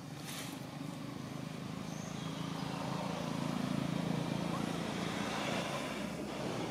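A motor vehicle's engine hum that grows louder to a peak about four seconds in and then fades, as of a vehicle passing by.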